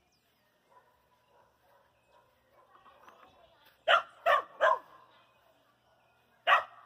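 A dog barking: three quick barks about four seconds in, then a single bark near the end.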